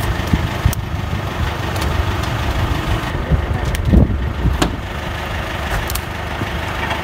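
Pickup truck engine idling steadily, with a few light knocks over it.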